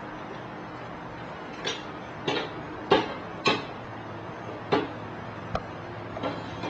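Bamboo pieces of a toy hammock stand knocking and clicking against each other and the tabletop as its feet are fitted together. There are about seven short, sharp knocks at an irregular pace.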